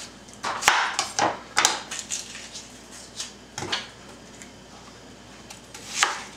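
Chef's knife chopping an onion on a wooden cutting board: irregular knocks of the blade striking the board, several in the first two seconds, a few more around the middle and one near the end.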